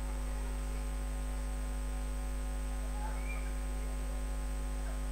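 Steady electrical mains hum with a ladder of overtones and a thin constant high whine. A few faint, brief gliding sounds come through about three seconds in and again near the end.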